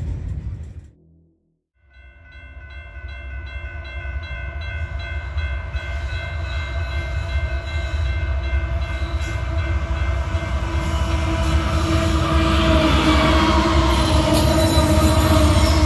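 Freight train braking as it slows, its brakes squealing in a steady, several-toned high squeal over a low rumble that grows louder. It begins about two seconds in, after the tail of music and a moment of silence.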